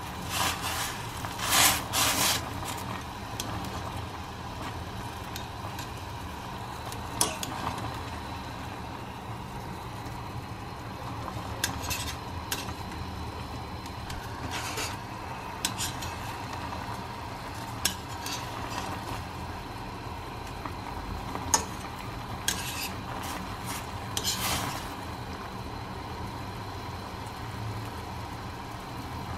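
Instant ramen boiling in a stainless steel pot as metal chopsticks stir and lift the noodles, clicking against the pot every few seconds.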